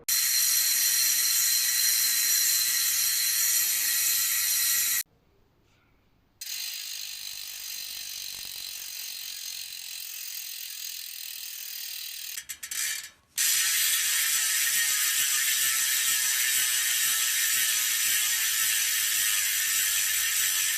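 Mountain bike rear hub freehub with three pawls and 120 engagement points, freewheeling with a very rapid, loud ticking that blurs into a high buzz. It stops about five seconds in, comes back quieter for several seconds, stutters briefly, then runs loud again.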